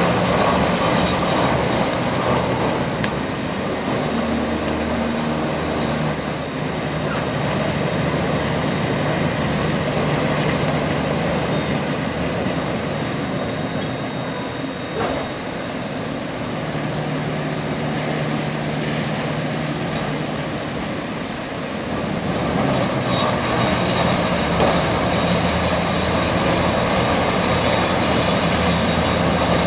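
Heavy machinery running steadily, with a low engine drone that shifts in pitch a few times and grows a little louder about 22 seconds in.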